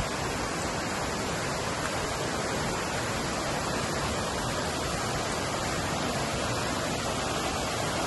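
Water from a stream cascading over rocks: a steady, even rush.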